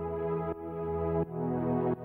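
Background music: held ambient chords that change about every three quarters of a second.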